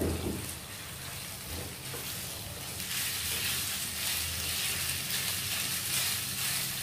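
Marinated chicken strips sizzling in hot oil in a nonstick frying pan on high heat, stirred and scraped with a silicone spatula. The sizzle grows louder about three seconds in.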